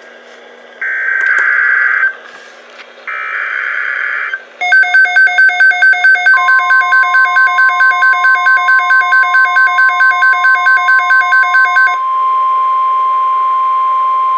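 NOAA Weather Radio Emergency Alert System tones: two harsh buzzing SAME data bursts, then a rapid electronic beeping alarm at about four beeps a second, joined about halfway through by the steady 1050 Hz weather radio warning tone, which carries on alone after the beeping stops. Together they signal that a warning or watch announcement is about to be read.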